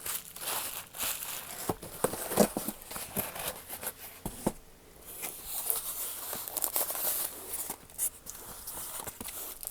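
Packaging being handled as a box is unpacked: irregular crinkling and rustling with scattered clicks and knocks.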